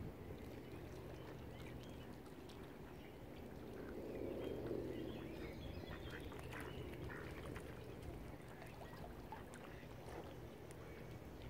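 Ducks quacking, a scatter of short calls bunched in the middle, over a steady low rushing background.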